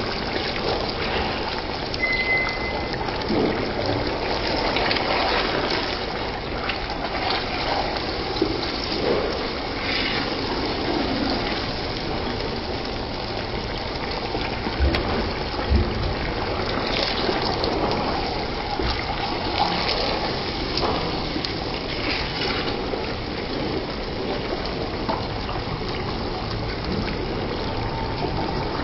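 Beef bhuna curry sizzling in a pot as it is stirred with a wooden spoon: a steady frying hiss, with the spoon scraping through the meat and potatoes and knocking against the pot a couple of times near the middle.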